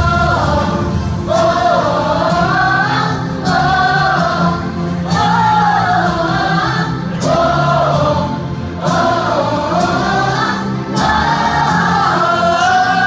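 EDM music with a sung vocal line in phrases of a second or two over a steady bass.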